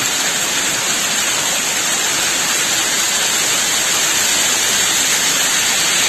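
Small mountain waterfall splashing down over rocks: a steady rush of falling water.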